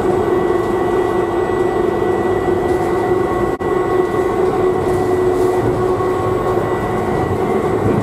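Inside a Uijeongbu LRT VAL 208 rubber-tyred automated train running at speed: a steady loud rumble with a constant hum and a thin high whine. The sound drops out for an instant a little before halfway through.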